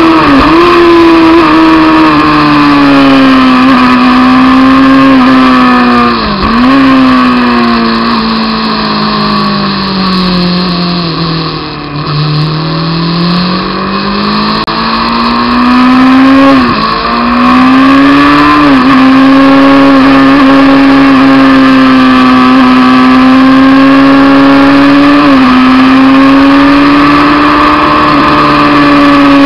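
Honda CBR600F2's inline-four engine running hard at high revs, its note dropping sharply for a moment at several gear changes. Around the middle the revs fall away for several seconds, then climb back up as it accelerates again.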